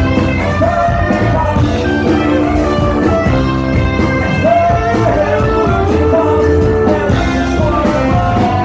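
A live rock band playing: acoustic and electric guitars, bass and drums, with a sung vocal line of long, held notes.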